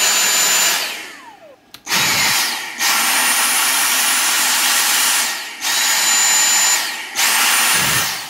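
Dyson DC58 handheld vacuum's motor, run directly off a Milwaukee M18 battery at a little over 20 volts through a push-button switch, switched on and off several times. Each run lasts one to three seconds, with a high whine that rises as the motor spins up and a falling tone as it winds down after release.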